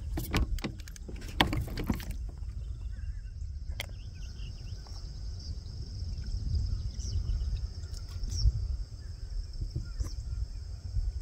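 Wind rumbling on a phone's microphone aboard a kayak, with a cluster of knocks and clicks in the first two seconds. A steady high-pitched drone starts about two seconds in.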